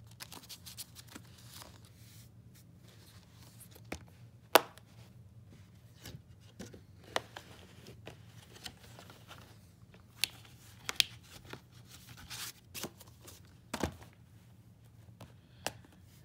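A plastic Blu-ray case and its paper insert being handled: scattered clicks and taps, the loudest about four and a half seconds in, with some paper rustling.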